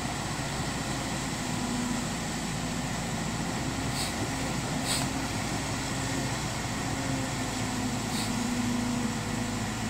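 Kobelco SK200-10 excavator's diesel engine running steadily, with a few faint ticks about four, five and eight seconds in.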